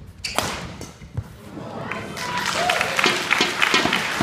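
A badminton racket strikes the shuttlecock with a sharp crack about half a second in, followed by a dull thud. From about two seconds on, spectator crowd voices rise into cheering and chatter as the rally ends.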